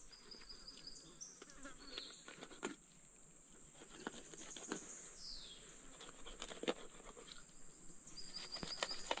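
Insects buzzing steadily at a high pitch, with a knife scraping and ticking against a fish's scales now and then, and a short falling whistle-like call about five seconds in.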